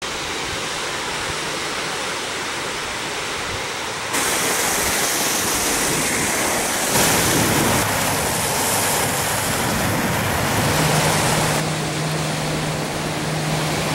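Small waves on Lake Michigan breaking and washing up onto a sandy beach, a steady rushing surf that jumps abruptly louder or softer a few times. A low steady hum joins it in the last few seconds.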